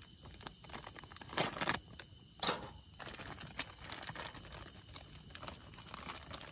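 Crinkling and rustling handling sounds with scattered small crackles; two louder rustles come about one and a half and two and a half seconds in.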